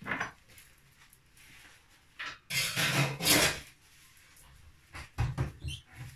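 Off-camera kitchen handling: a rustling, rubbing scrape lasting about a second, then a few short knocks on the worktop near the end.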